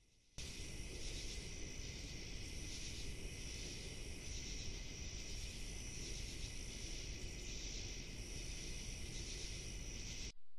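Night insect chorus of crickets and katydids: a steady high-pitched chirring that swells and fades every second or two, over a low even rumble.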